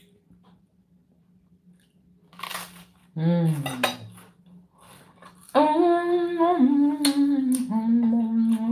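A woman humming a closed-mouth 'mmm' while chewing toast: a short falling hum about three seconds in, then a long held hum that steps down in pitch over the last three seconds. A few light clinks of cutlery on a plate.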